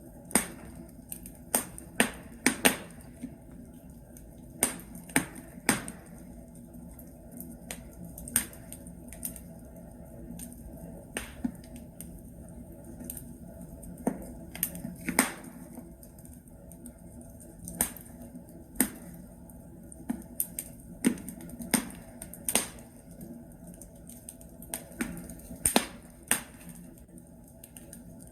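Wood fire in a fireplace crackling: burning logs give irregular sharp pops and snaps, some much louder than others, over a steady low background.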